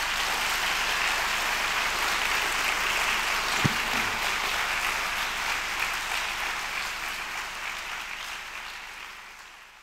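Audience applauding steadily, fading out over the last few seconds. A single low thump sounds about three and a half seconds in.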